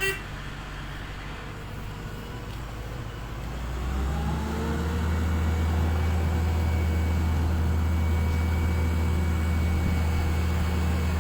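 A short sharp sound right at the start, then a motor vehicle's engine coming in about four seconds in, rising briefly in pitch and then running steadily.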